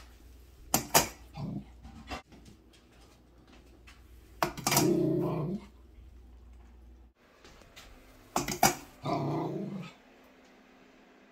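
Shetland sheepdog puppy growling in three bursts, each starting sharply, the longer ones lasting about a second. It is a warning to the cat to keep away from her food.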